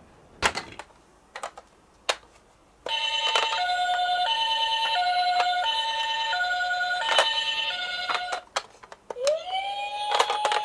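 Electronic two-tone siren of a toy ambulance minicar, sounding an alternating high-low "pee-po" pattern for about five seconds. It starts about three seconds in, after a few sharp clicks. Near the end a rising tone glides up and holds.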